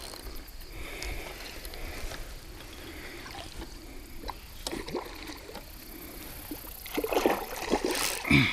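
Hooked carp splashing and thrashing at the water's surface close to the bank while fighting the rod, with the loudest splashes near the end.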